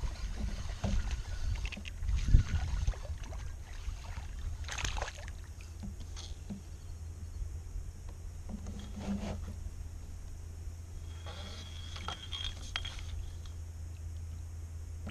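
Knocks and rattles of a fishing rod, reel and hands against a kayak as a small bass is reeled in and landed, the loudest a single thump about two seconds in, over a steady low rumble.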